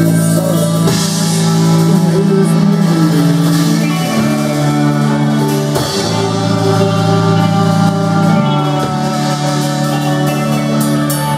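A band playing the instrumental ending of a song: held chords over cymbal wash, with the chord changing twice.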